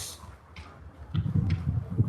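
A short pause in speech: faint room sound with a couple of small clicks, then a low, muffled voice-like sound in the second half.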